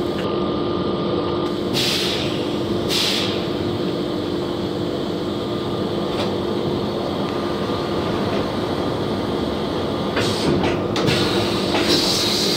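CNC vertical machining centre cutting a part held in its fourth-axis rotary chuck under flowing coolant: a steady mechanical hum with a constant higher whine. Two short hisses come about two and three seconds in. From about ten seconds in the sound turns noisier and more uneven as the spindle head rises.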